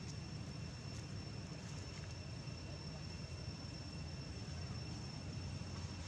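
Steady outdoor background noise: a low rumble with a thin, steady high-pitched tone above it and no distinct event.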